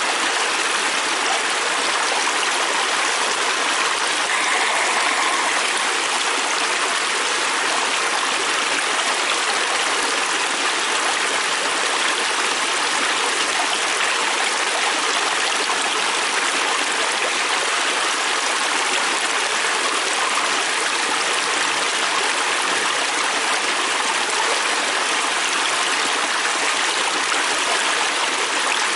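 Fast-flowing river stream rushing steadily over rocks, a constant loud wash of water.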